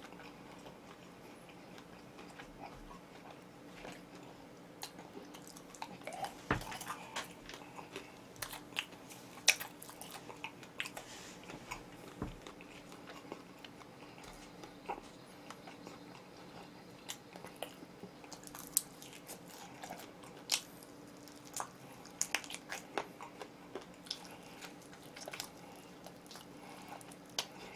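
Close-miked biting and chewing of crispy oven-baked chicken: scattered short crunches and mouth clicks at irregular intervals.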